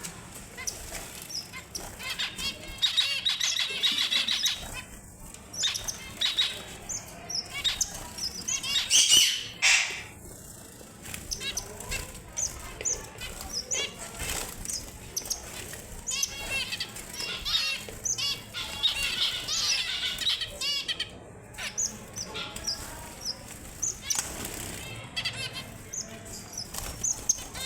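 Red avadavats (strawberry finches) giving many short, high chirps with several bursts of fast warbling song, mixed with the flutter of wings.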